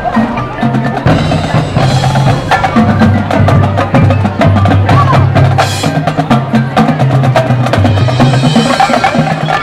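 Marching band playing, with drums and struck percussion over sustained low notes that change pitch every second or so.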